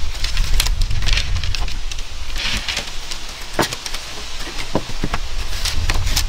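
Split bamboo slats knocking and rustling as they are handled and tied down, with a handful of sharp clicks scattered through, over a steady low rumble.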